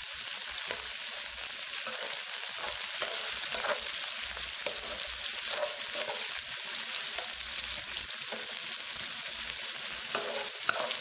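Sliced onions sizzling in hot oil in a non-stick pan while a wooden spatula stirs them: a steady high hiss with soft, irregular scraping strokes. The onions are being sautéed until they turn translucent.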